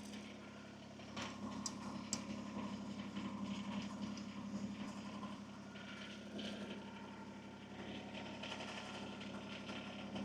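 Kubota BX23S compact tractor's three-cylinder diesel idling steadily and faintly, with a few light clicks in the first couple of seconds.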